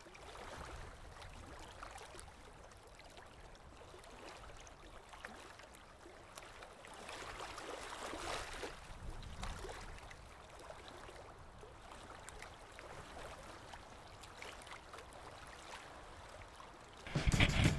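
Faint, steady washing noise like moving water or surf, swelling for a few seconds around the middle. A much louder sound cuts in near the end.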